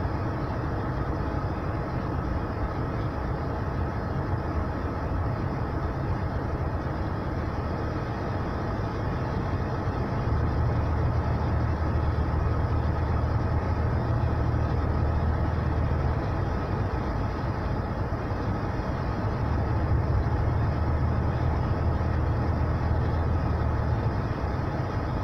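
Steady road and engine noise of a car driving at speed, with a deep low hum that swells about ten seconds in and again about twenty seconds in.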